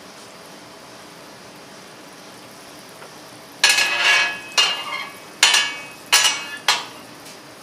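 A metal kitchen utensil striking metal cookware five times in quick succession, each hit ringing out briefly, beginning about three and a half seconds in.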